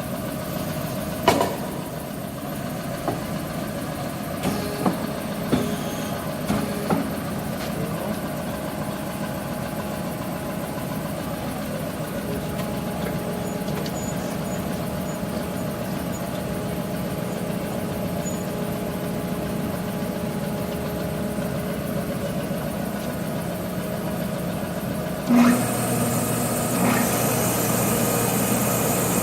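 Woodworking tenoning machine's electric motors running with a steady hum, with a few sharp knocks in the first seven seconds. About 25 seconds in, another motor starts up and the sound gets louder, with more hiss.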